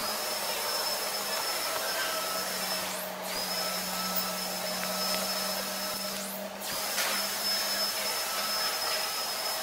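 A steady mechanical whir and hum of a running motor, with a steady low tone under an even hiss.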